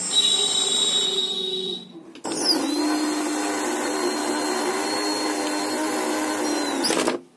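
Small brushless DC outrunner motor, driven by a 30 A ESC, whirring at high speed. After a short break it spins up with a rising whine about two seconds in, runs at a steady speed for about five seconds, then winds down near the end.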